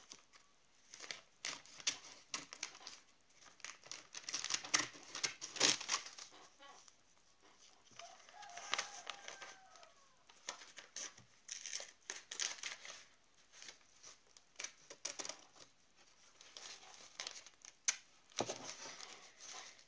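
Magazine paper crinkling and rustling as it is handled and cut, in irregular bursts of crackles.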